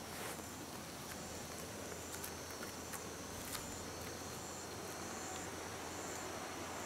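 Evening chorus of singing insects: short high chirps repeating a little more than once a second over a thin continuous trill, faint, with a few soft clicks.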